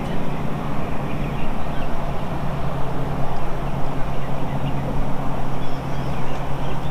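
A boat's motor running with a steady low hum, under a rush of wind noise on the microphone.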